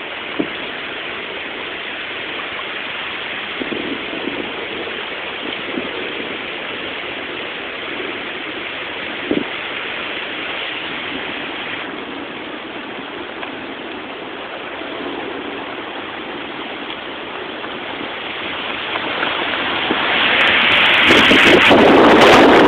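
Hurricane rain and wind: a steady, even hiss. About twenty seconds in, a strong gust hits the microphone and the sound grows much louder.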